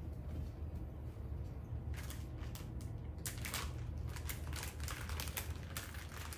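Plastic packet of thin-sliced ham being handled, crinkling in quick irregular clicks that start about two seconds in, over a steady low hum.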